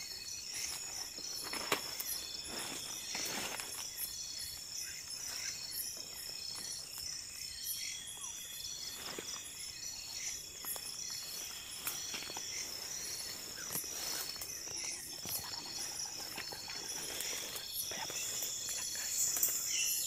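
Night insect chorus of crickets trilling in a steady, pulsing rhythm. Occasional short rustles and snaps of undergrowth come through as someone moves through the vegetation.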